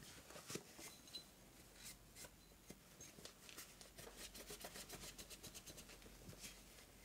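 Cloth rubbing and scrubbing over a Glock pistol slide, wiping off fouling loosened by cleaner: faint, quick scratchy strokes that come thicker about four to five seconds in.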